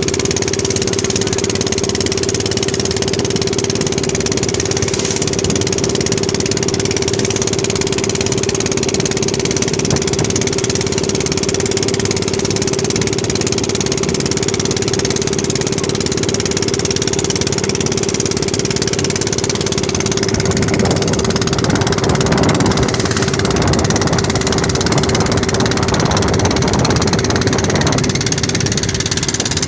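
An engine running steadily with a constant hum, with more rumble for several seconds about two-thirds of the way through.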